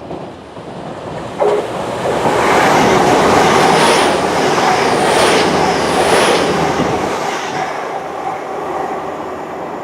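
A train passing close by on the rails: the noise swells to its loudest a few seconds in, then slowly fades as it goes away, with a sharp click about a second and a half in.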